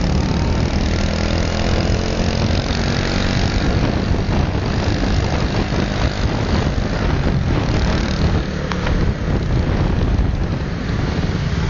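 Steady engine and road noise heard while riding through street traffic, with motorbikes passing close by.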